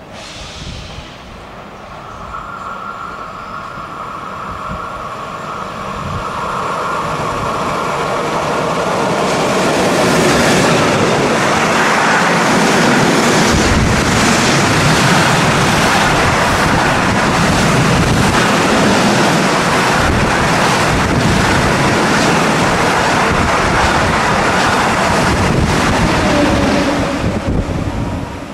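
Freight train of low-floor RoLa wagons loaded with lorries passing close by. The rolling noise builds over the first several seconds with a steady whine, then holds as a loud, steady rumble with rapid knocking of wheels over rail joints, and falls away quickly near the end as the last wagon passes.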